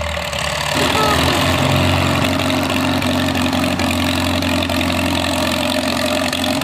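Farmall tractor engine running steadily as it drives, picking up in level and pitch about a second in.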